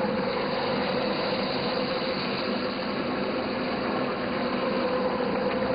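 Fish deep-frying in a large karahi of hot oil, a steady sizzle, under a faint steady mechanical hum.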